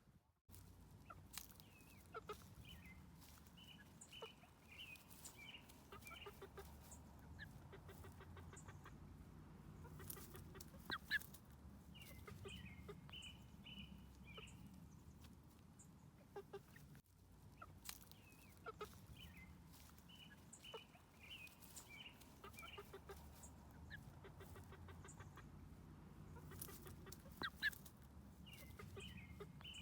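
Three-month-old chickens making soft trilling clucks in short clusters every several seconds, with scattered light clicks.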